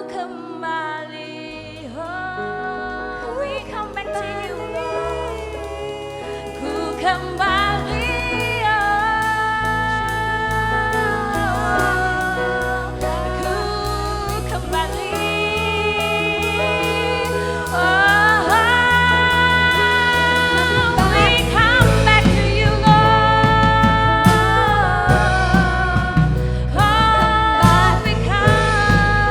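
Worship song sung to band accompaniment: the singing is carried over sustained keys. A bass line comes in just after the start, and the drums build up, with the music getting louder about two-thirds of the way through.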